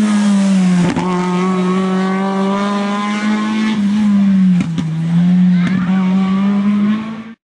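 Volkswagen Golf Mk2 rally car's engine running hard at high revs through a double bend, its pitch dipping briefly about a second in and twice more later, each dip with a sharp crack. The sound cuts off suddenly near the end.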